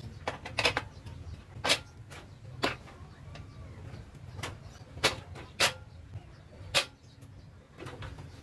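Steel front axle of a Suzuki TMX 155 motorcycle clinking and tapping against the wheel hub and fork as it is slid back through the wheel: about seven sharp metallic clicks spread unevenly over several seconds.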